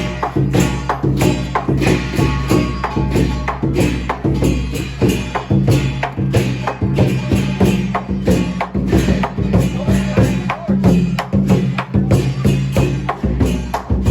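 Southern Chinese lion dance percussion: a large drum pounding with crashing cymbals and a gong, in a fast, steady rhythm.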